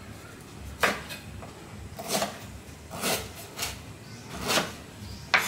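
Knife chopping through hard galangal root on a cutting board: about six separate sharp knocks, spaced unevenly about a second apart.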